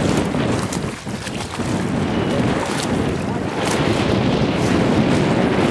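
Wind buffeting the microphone: a loud, steady low rumble that eases briefly about a second in.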